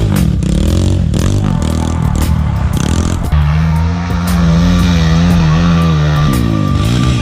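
Off-road vehicle engines revving hard, the pitch rising and falling, then held high and wavering for a few seconds, with music mixed underneath.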